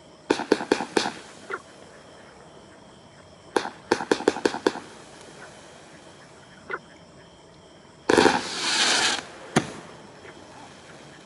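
Kimbolton Leto's Charm 84-shot firework cake firing. There are two quick volleys of sharp reports, about half a dozen shots each, in the first five seconds, then a lone report. Near the end comes about a second of dense crackling hiss with one more bang after it.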